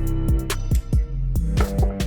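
Background music with a beat of drum hits over a held bass line.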